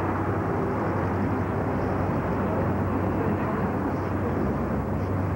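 Outdoor city background: a steady low rumble with faint, distant voices of people.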